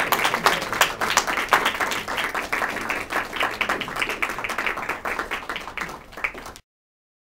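Audience applauding, many hands clapping; the applause cuts off suddenly near the end.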